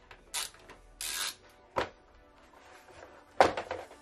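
Plastic body panel of a motorcycle being worked loose and pulled off by hand: scraping rubs, a sharp click almost two seconds in, and a loud plastic knock with a short rattle near the end.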